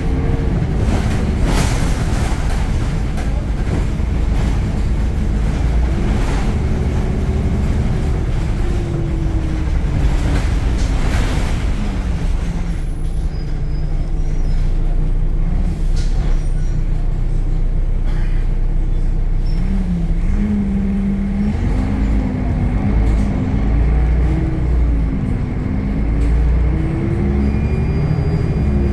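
Temsa Avenue LF city bus running on its DAF diesel engine and ZF gearbox: a heavy low rumble with a whine that rises and falls in pitch several times as the bus speeds up and slows, and a couple of brief rattles.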